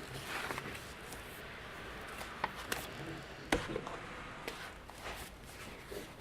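Scattered light clicks and knocks over low background noise, with a few sharper ones near the middle.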